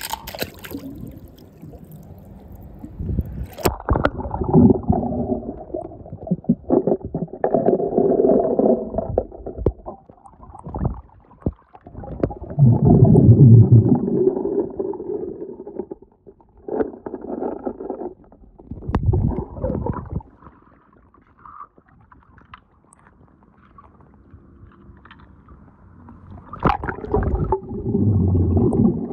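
Muffled underwater sound of pool water churning and sloshing as a hand sweeps through it, in surges with quieter gaps between. There are a few sharp knocks, the first about four seconds in.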